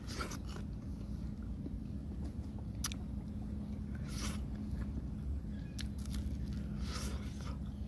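A person chewing and biting into grilled catfish, with a few short crisp crunches, the sharpest about three seconds in and others around four and seven seconds in, over a steady low hum.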